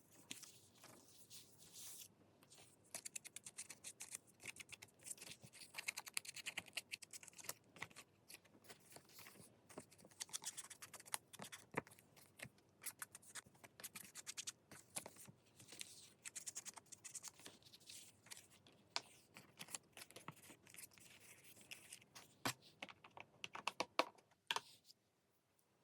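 Paper being cut and handled: an irregular run of faint scratchy snips and small clicks that stops shortly before the end.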